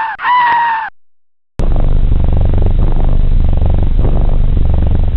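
A short high-pitched cry ends just under a second in. After a brief gap, a loud, steady, low rumble with a fast fine pulse starts abruptly, typical of a cat purring close up.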